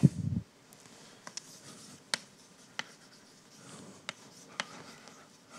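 Chalk writing on a blackboard: faint scratching broken by several sharp, irregular taps of the chalk against the board.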